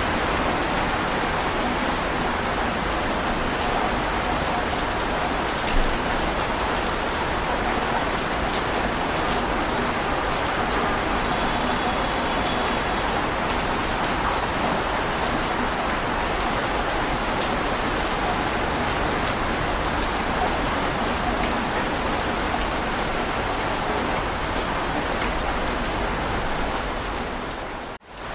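Heavy rain falling steadily, an even hiss of many drops. It fades out for a moment near the end and then comes back.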